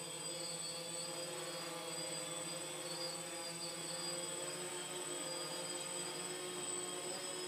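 Small quadcopter's rotors running as it hovers: a steady buzzing hum with several tones stacked together.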